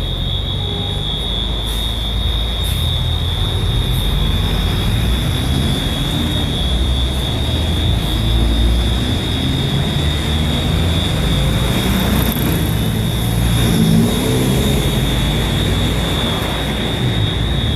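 Allianz Parque arena's fire alarm sounding one continuous, unbroken high-pitched tone over a loud low rumble.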